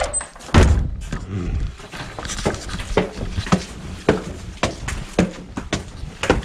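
Footsteps climbing brick steps, about two steps a second, with a louder low, noisy thump-and-rustle near the start.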